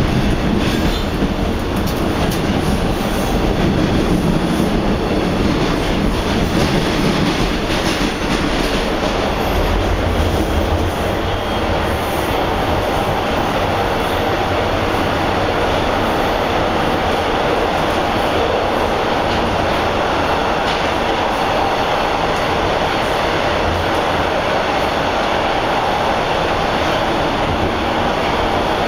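Interior noise of a TTC Bombardier T1 subway car running through a tunnel: a steady rumble and rush of wheels on rail, heard from inside the car. For roughly the first ten seconds it is dotted with clicks, then it runs smoother.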